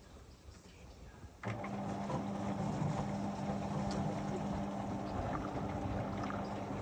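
Whirlpool FSCR 10425 front-loading washing machine starting up abruptly about a second and a half in, then running with a steady low hum and a rushing noise.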